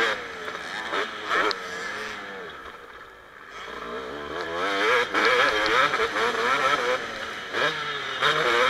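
Kawasaki KX250 motocross bike's engine revving up and down under hard riding, the pitch rising and falling with the throttle. About two seconds in it drops back and goes quieter for a second or so, then opens up again with quick rises and falls.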